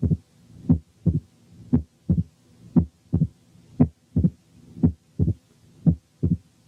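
Recorded heart sounds in mitral stenosis with the patient lying on the back: a slow, regular beat of about one a second, each beat a pair of sharp first and second heart sounds with the first sound accentuated. The pauses between beats are quiet, with no diastolic murmur heard yet.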